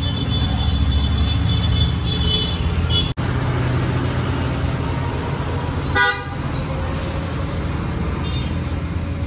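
A steady low mechanical hum, with a short toot from a vehicle horn about six seconds in.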